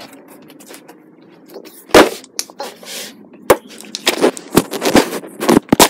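Handling noise: a string of sharp knocks and bumps, the loudest about two seconds in and more of them, closer together, near the end, with faint scuffing and rustling between them.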